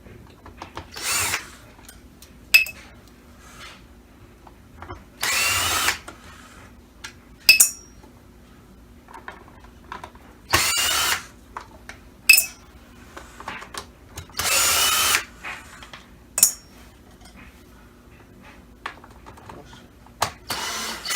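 Electric screwdriver with a T15 Torx bit, running in several short runs of about a second each as it backs out the screws holding a Dyson DC25 cleaner head together. Sharp single clicks come between the runs.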